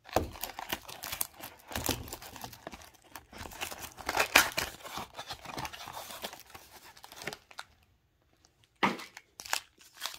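Foil trading-card packs and a cardboard box crinkling, rustling and tearing as they are opened and handled. The crackle is dense for most of the time and stops for about a second near the end before a few more rustles.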